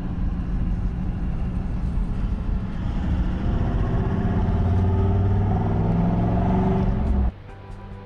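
Toyota LandCruiser 76 Series V8 turbo-diesel running, heard from inside the cab while driving on a sealed road, its engine note rising as it accelerates. It cuts off suddenly near the end, giving way to music.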